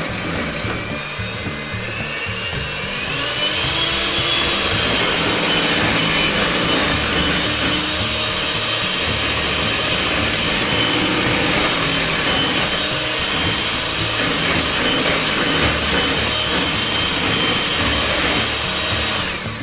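Electric hand mixer running, its beaters churning cream cheese filling in a bowl. The motor's whine rises in pitch about three seconds in, then holds steady, and cuts off at the end.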